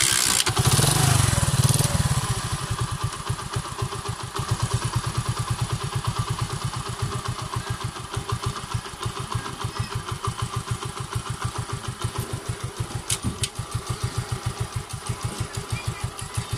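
Small single-cylinder motorcycle engine revving briefly, then settling into a steady idle with quick, evenly spaced exhaust pulses, while the idle is being set low with the carburettor's idle screw.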